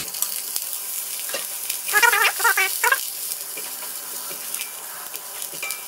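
Tofu pieces sizzling in hot oil in a wok as a spatula stirs them, with a few light clicks of the spatula. About two seconds in comes a short, louder warbling squeal.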